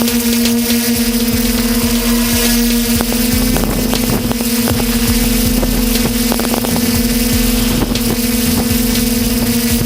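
Skyhero Little 6 hexacopter's six electric motors and propellers humming steadily at one pitch, heard close up from the camera on the drone, with rushing air noise and a few short cracks.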